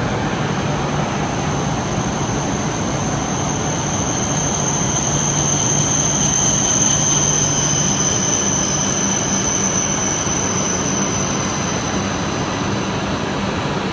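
E5 series Shinkansen pulling into the platform and slowing past at close range. A steady low hum runs under a high whine, which swells as the train comes alongside and eases near the end.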